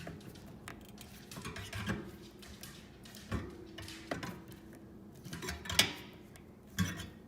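Needle-nose pliers clicking and scraping against the metal louvers of a vent grille as the louvers are bent slightly open, a scattering of sharp metallic clicks with the loudest near the end. The louvers are being opened to cure a humming reed effect.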